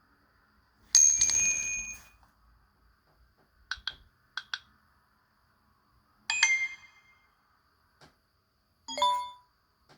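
Samsung Galaxy Tab A notification tones played one after another: a bright chime about a second in, two pairs of quick high blips around the middle, then two more short chimes near the end.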